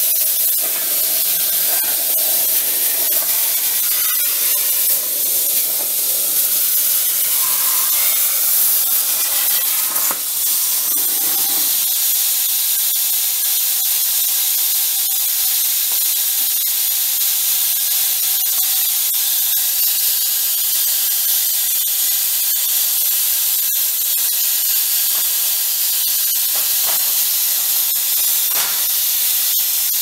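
Air plasma torch on a CNC plasma table hissing loudly as it cuts steel plate. About twelve seconds in, the deeper part of the sound drops out and a thinner steady air hiss carries on.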